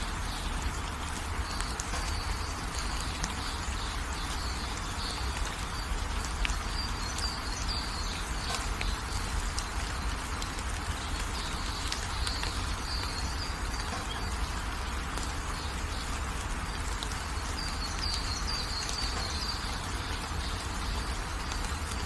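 Steady light rain hissing, with a low rumble underneath, while small birds chirp in short high clusters every few seconds.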